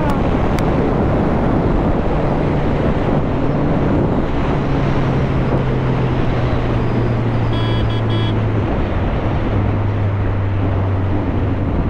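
BMW K1200S sport bike engine running at cruising speed under heavy wind rush, its low hum stepping down in pitch about two-thirds of the way through and again near the end. Two short high beeps sound about eight seconds in.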